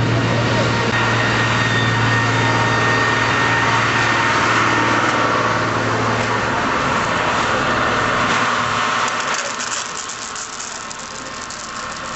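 A vehicle engine running steadily with a low hum, fading out about nine seconds in, leaving a crackling hiss.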